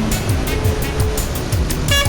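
Upbeat background music with a steady beat of low drum thumps, about two a second, and ticking hi-hats over them.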